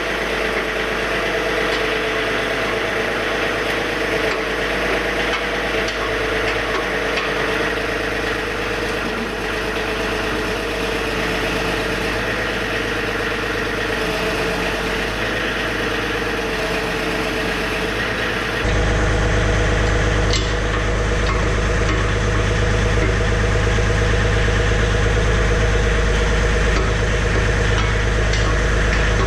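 John Deere 3000-series compact tractor's diesel engine running steadily. About two-thirds through, the sound changes abruptly to a louder, deeper low rumble.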